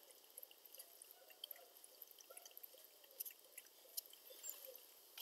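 Near silence: quiet room tone with a few faint small ticks.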